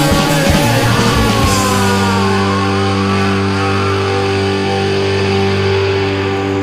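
Rock music with distorted electric guitar; about a second and a half in the playing settles onto one long held chord that rings on.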